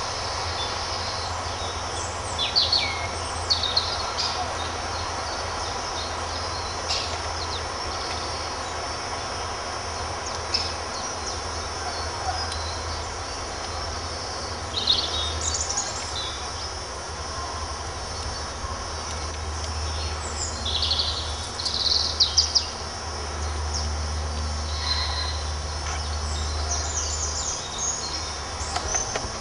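Woodland birds calling: scattered short chirps and song phrases, a busier flurry about two-thirds of the way through, over a steady low rumble and hiss.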